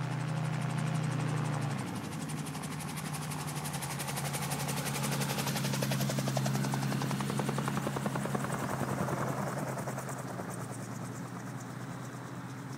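Autogyro flying past low overhead, its engine and propeller with a fast chopping beat that grows louder to a peak about six seconds in and then fades. A steady low engine hum runs underneath.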